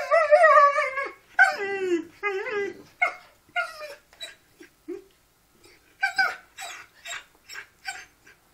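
Dogs whining and yipping at each other over a chew, in a series of pitched calls that fall and waver. The calls are longest and loudest over the first two seconds, then come shorter and fainter, with another brief flurry about six seconds in.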